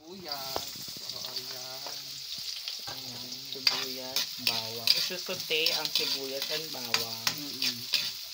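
Chopped onion and garlic sizzling in oil in a stainless steel wok, stirred with a metal spatula. The spatula scrapes and clinks against the pan over and over, above a steady sizzle.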